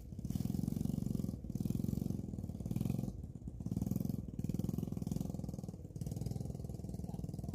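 A small engine running steadily, its sound dipping briefly several times.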